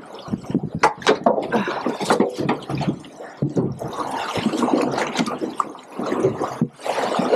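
Water sloshing and slapping against a boat's hull in choppy sea, in irregular splashes.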